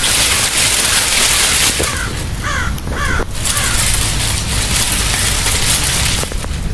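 A few short animal calls, about two to three seconds in, over a steady high hiss of night background noise.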